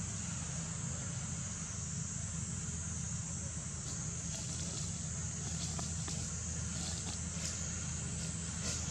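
Steady outdoor background: a low hum with an even high-pitched hiss over it, and a few faint clicks.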